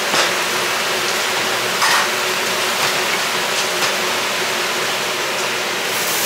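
Steady rushing kitchen background noise, with a few soft squelches as hands mix marinated chicken pieces in a stainless steel tray.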